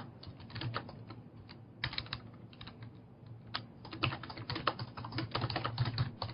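Typing on a computer keyboard: irregular key clicks, sparse at first, then a quick dense run of keystrokes about four seconds in.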